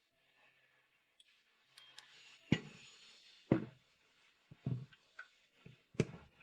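A series of irregular sharp knocks and clicks, about seven over four seconds. The loudest come about two and a half, three and a half and six seconds in.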